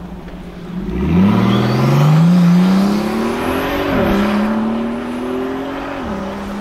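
Brabus-tuned Mercedes-AMG car accelerating hard: the engine note jumps about a second in and climbs steadily, drops with an upshift about four seconds in, climbs again, then falls to a steady note near the end.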